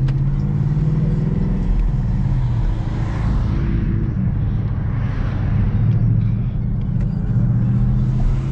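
Ford Mustang's engine and road noise heard from inside the cabin, running steadily with a low rumble while cruising in city traffic.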